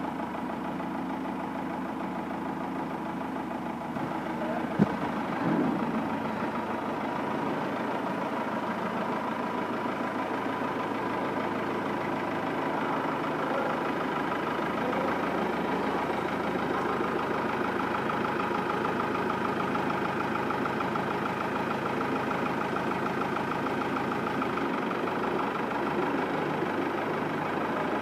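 Fiat 550 tractor's three-cylinder diesel engine running steadily at low speed as the tractor moves off slowly, with one sharp knock about five seconds in.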